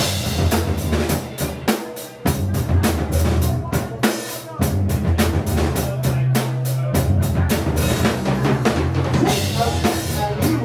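Live rock band playing: a drum kit driving a fast, steady beat of kick, snare and cymbal hits over bass guitar and electric guitar.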